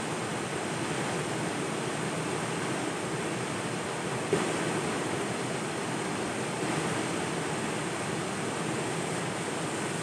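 River water flowing in a steady, even rush, with one short click a little over four seconds in.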